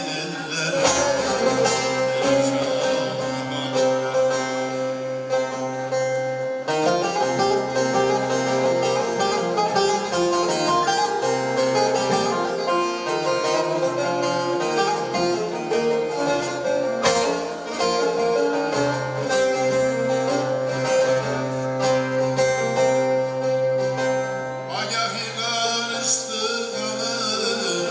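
Bağlama (long-necked Turkish saz) played live, with a man singing a Turkish folk song (türkü) over it; a low note holds steady underneath.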